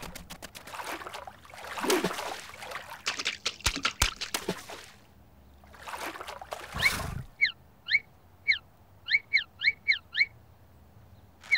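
Cartoon sound effects: whooshing noise with two sharp knocks in the first half, then a quick run of about ten short squeaky chirps, each falling in pitch.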